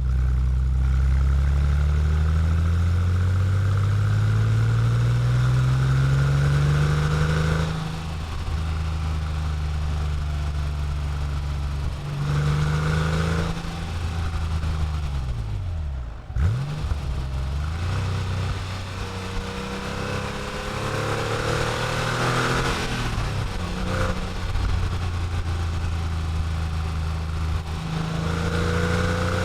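Air-cooled 3.6-litre flat-six of a 1997 Porsche 911 Carrera 4S (993) with the factory Motor Sound Package, heard from outside the car, revving up hard under acceleration. The pitch climbs steadily for several seconds, drops at a gear change, then climbs again in several shorter pulls, with a quick dip and rebound in pitch about halfway through.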